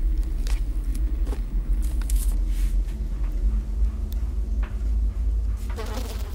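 A steady deep low rumble, with scattered faint clicks and rustles and a louder rustling stretch near the end.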